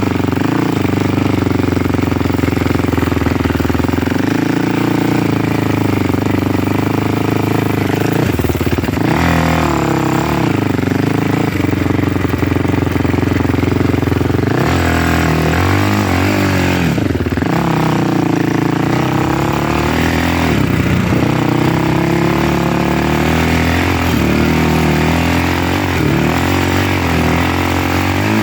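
Motor vehicle engine running under way, its pitch rising and falling repeatedly as the revs change.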